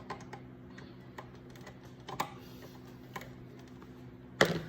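Nut driver tightening a worm-drive hose clamp: irregular light clicks, with a sharper click about two seconds in and a louder knock near the end, over a steady low hum.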